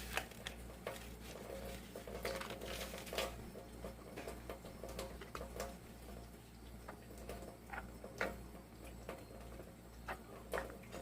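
Irregular light clicks and scrapes of a spoon against a pot while macaroni and cheese is stirred, over a steady low hum.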